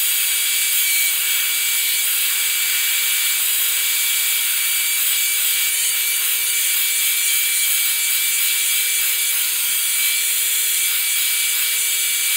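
Hand-held hair dryer running on medium heat and high airflow. It makes a loud, steady rush of air with a constant hum and a fainter high whine.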